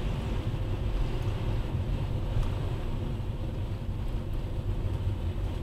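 Steady low rumble of road and engine noise inside a Ford EcoSport's cabin as it drives slowly through city traffic.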